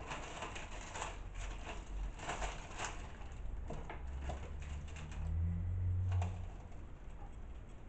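Fruit being handled and cut with a knife: a run of small clicks and light rustles, then a low hum for about two seconds from around the fourth second.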